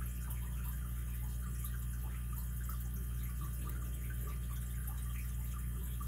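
Faint, irregular ticking and scraping of a lock pick raking and setting pins inside a solid brass Hercules 800 pin-tumbler padlock under tension, over a steady hum.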